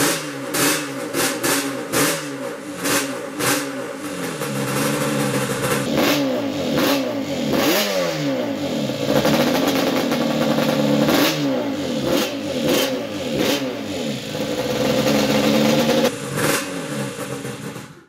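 Yamaha Banshee's twin-cylinder two-stroke engine, built up as a 472 cc Supercub stroker, running on its first start. It sounds uneven and crackly for the first few seconds, then is revved up and down several times, and the sound cuts off abruptly at the very end.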